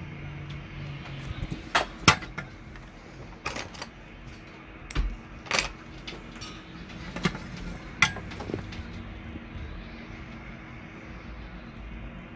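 Small metal microsoldering tools clicking and clinking, about eight sharp clicks in the first two-thirds, over a steady machine hum.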